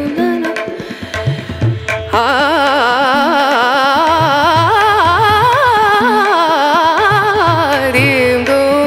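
Carnatic classical music with a sung melody that wavers and bends in pitch. Drum strokes sound under it in the first two seconds.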